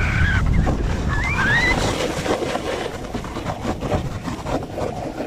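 Wind buffeting the microphone with the scrape and hiss of a snowboard sliding over snow. Two brief high, wavering tones come in the first two seconds.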